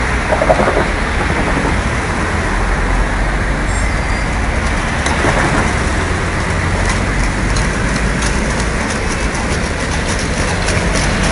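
A tram running past over steady street traffic noise. From about halfway in, horse hooves clip-clop on the road with more and more strokes as they come closer.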